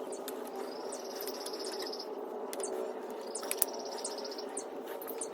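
A high, rapid, insect-like pulsing trill, each about a second long, heard twice, over a steady low hum.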